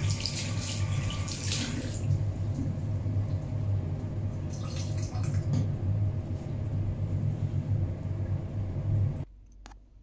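Water running from a bathroom sink tap and splashing over hands for about two seconds, then a shorter rubbing hiss as a towel wipes the basin, all over a steady low hum. The hum and all the other sound stop abruptly about nine seconds in, leaving a quiet room with a few faint clicks.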